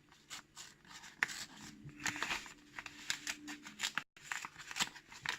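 Hands opening the wrapping around a lock cylinder: irregular crinkling and tearing of packaging, with a sound like snipping. The sound drops out completely for an instant about four seconds in.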